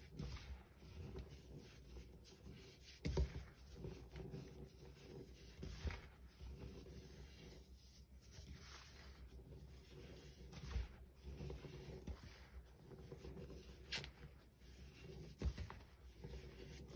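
Hands squeezing, crumbling and pressing packed baking soda powder: a faint, irregular crunching and rubbing, with a few louder crunches scattered through.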